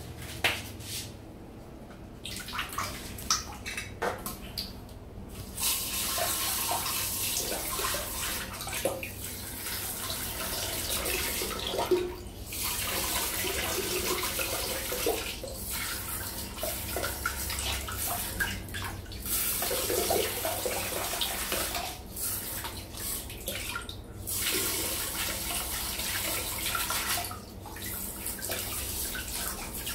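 A few knocks of plastic parts being handled, then a handheld bidet sprayer hissing as its jet rinses dirt out of a plastic basin bottle trap and splashes into a toilet bowl. The spray starts about five seconds in and stops and starts again several times.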